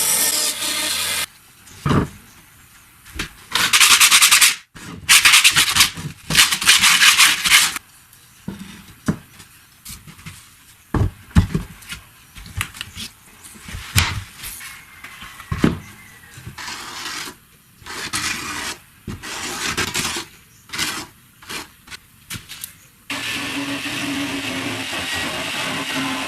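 Woodworking in a workshop. A power tool runs at the start, stops after about a second, and starts again near the end. In between there are two loud bursts of sawing or sanding noise and scattered knocks, rubs and scrapes of wood being handled.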